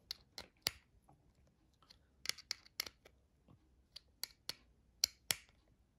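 Small metal clicks and ticks, irregular and in short clusters, from a Phillips screwdriver working the small screws of a cordless hair trimmer's blade mount while a Wahl T-wide blade is fastened on.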